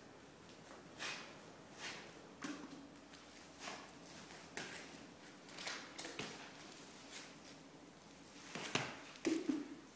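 Paint being swept and splashed onto a canvas: a series of soft, irregular swishes and splats, about one a second, a little louder near the end.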